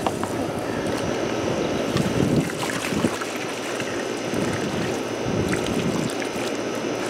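Steady spray of water from a garden hose, splashing onto legs and the ground, with a rushing sound that rises and falls a little.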